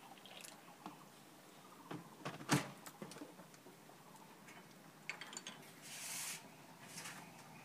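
Light knocks and clinks of tea ware being handled on a metal tea tray, the loudest a sharp knock about two and a half seconds in. A brief hiss comes near six seconds in.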